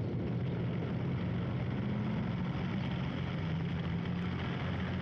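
Heavy vehicle engines running steadily, a continuous low rumble.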